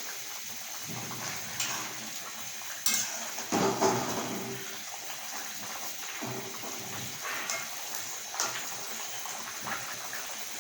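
Thin fish curry boiling in a pot, with several sharp clinks and knocks of a utensil against the pot, the loudest a few seconds in, as fried fish pieces are added.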